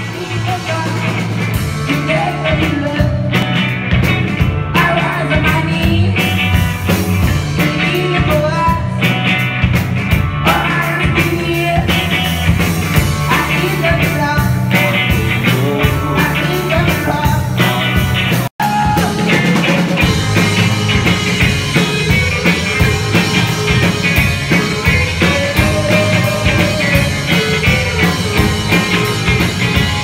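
Live rock band playing loud, with electric guitars, drums and a male voice singing. The whole sound cuts out for a split second about halfway through.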